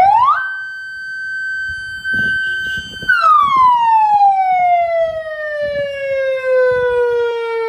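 Motorbike-mounted electronic hooter siren, working again after its fault was repaired, sounding one long wail. The pitch rises quickly, holds steady for about three seconds, then falls slowly over the next four seconds.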